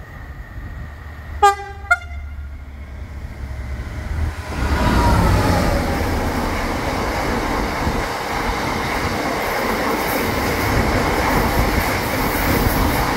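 Class 66 diesel freight locomotive, with its EMD two-stroke V12, gives two short horn toots in quick succession about a second and a half in. It then runs past at speed: the low engine drone swells into a loud rush, with a falling pitch as the locomotive goes by. A steady rumble of the train's wagon wheels follows.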